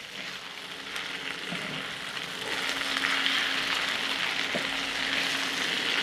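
Sliced onions and chiles sizzling in hot oil in a wide steel disc pan while a wooden spatula stirs them; the sizzle grows louder about halfway through.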